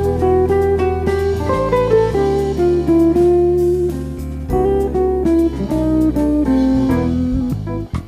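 Instrumental jazz from a quartet of piano, guitar, fretless bass and drums, with a guitar line to the fore over sustained bass notes.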